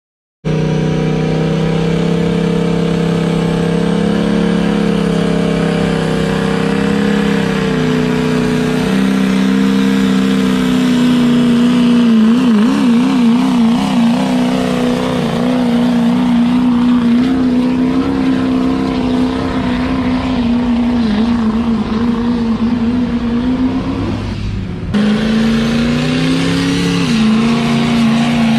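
Diesel pickup truck engines held at high revs while pulling a weighted sled, a steady heavy drone. The pitch wavers partway through, and the sound cuts abruptly to another run near the end.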